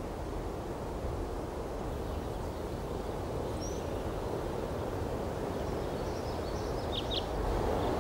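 Outdoor ambience: a steady low wind rumble, with a few faint short bird chirps, one about three and a half seconds in and two close together near seven seconds.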